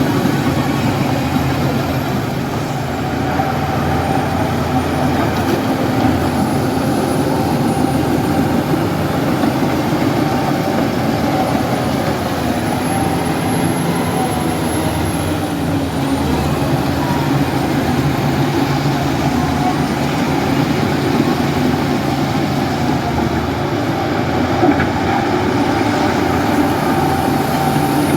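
Heavy diesel engine of earth-moving or garbage-hauling machinery running steadily under load, with a faint thin high whine above it.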